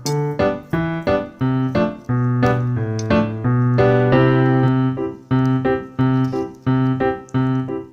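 Background piano music: a melody of struck notes, a few a second, over low bass notes.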